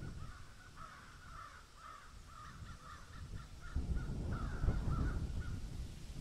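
Birds calling: a quick run of many short calls, several a second, with a low rumble joining in from about four seconds in.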